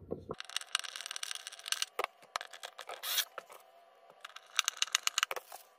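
Plastic scraping and clicking as an LED puck light is twisted into its mounting base, with rustling handling noise. The sounds come as a dense run of small clicks at first, then a sharp scrape about three seconds in, then a last cluster of clicks near the end.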